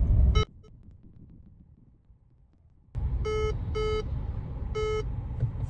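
Peugeot 2008 dashboard warning beeps, three short pitched beeps over the hum of the moving car's cabin, after the sound falls away to faint for about two and a half seconds early on. The beeps are the reminder to enter the IGLA security code, without which the anti-theft system will bring the car to a stop.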